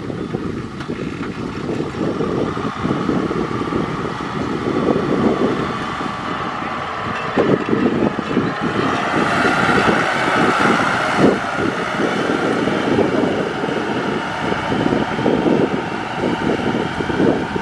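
Kubota M6040SU tractor's diesel engine running steadily under load while pulling a rotary tiller through dry rice-field soil, growing somewhat louder about halfway through.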